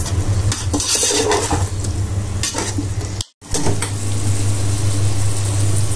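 A perforated metal ladle stirs and scrapes chicken and potato pieces in masala around a metal pot, with clinks against the pot, over the sizzle of the curry frying. A steady low hum runs underneath. The sound cuts out for a moment a little past halfway, then goes on as a steadier sizzle.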